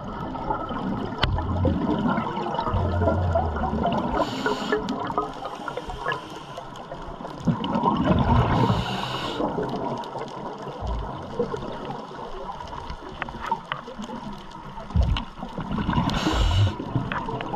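Scuba regulator breathing recorded underwater: a continuous low gurgle of bubbles, with three louder bursts of exhaled bubbles every few seconds.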